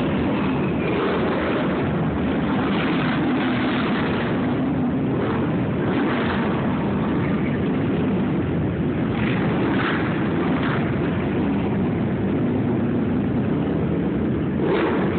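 Steady din of an arena crowd waiting in the dark, with scattered louder shouts rising out of it now and then.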